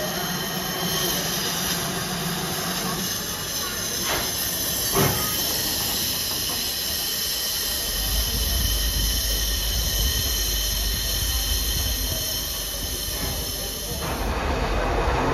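Steady, high-pitched hiss of steam escaping from a standing GWR Grange-class 4-6-0, 6880 'Betton Grange', with two short knocks about four and five seconds in. The sound changes suddenly near the end.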